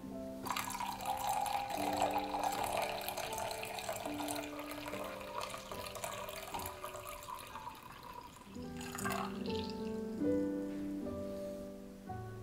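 Hot drink poured from a saucepan into a mug: a steady liquid pour that stops about eight and a half seconds in, over soft piano music.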